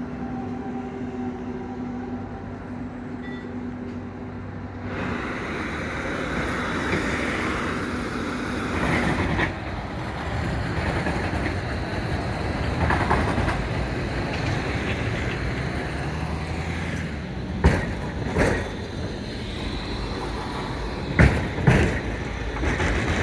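A Zagreb tram running on its rails. A steady hum turns into louder wheel-and-rail noise about five seconds in, with several sharp knocks near the end.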